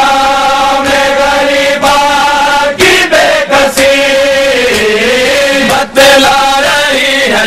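Male voices chanting a Muharram noha, a Shia mourning lament, in long held notes. Short breaks for breath come about three seconds in and again near six seconds, and the pitch sags and slides down in the middle.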